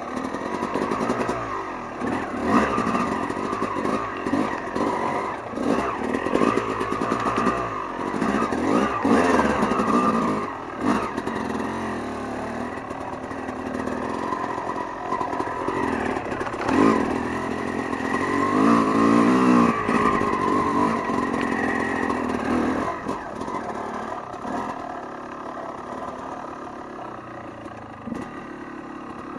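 Dirt bike engine running and revving up and down as it rides off-road, its pitch rising and falling with the throttle. Over the first half, stones under the tyres clatter.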